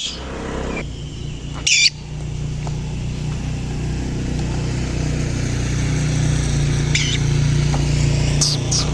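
A low, steady droning hum that slowly grows louder, with a few short high bird calls over it: one about two seconds in, a brief one near seven seconds, and a quick run of chirps near the end.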